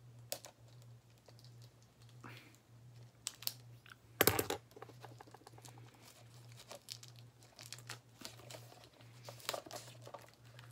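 Plastic shrink-wrap on a DVD case crinkling and tearing as it is worked off by hand, in scattered rustles and clicks with a louder crackle about four seconds in. A steady low hum runs underneath.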